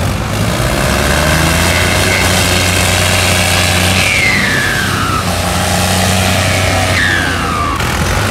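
Tractor diesel engine running hard and steady under load as its rear wheels spin in loose dirt. Two high falling whines cut in, about four and seven seconds in.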